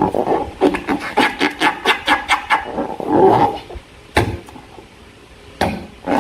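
Slime being squeezed and worked by hand: a rapid run of wet, squelching clicks and crackles that swells about three seconds in, then goes quieter, broken by a couple of sharp snaps.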